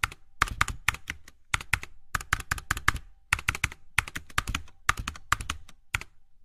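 Computer keyboard typing sound effect: rapid runs of key clicks broken by short pauses, matching text being typed onto the screen.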